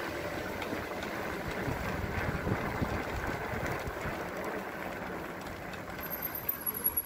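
Riding noise from an electric fat bike on a wet road: steady wind and road rumble, with the loose handlebar phone mount shaking from the vibration. A few knocks and a faint high whine come near the end.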